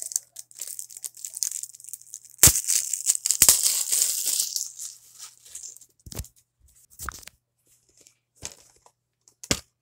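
Clear plastic shrink wrap being torn and crinkled off a DVD case, with a couple of sharp clicks from handling the plastic case. The crinkling stops a little past halfway, and only a few scattered clicks follow.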